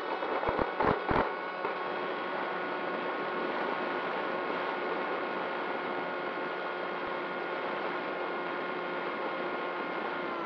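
Radio-control model plane's motor running at a steady pitch, heard from a camera on the plane's nose as a constant whine over wind hiss. A few knocks come about half a second to a second in, as the plane bumps over the grass on its takeoff run.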